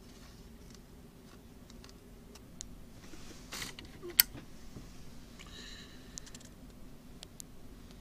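Faint clicks and handling rustle over a low steady hum, with one sharp click about four seconds in.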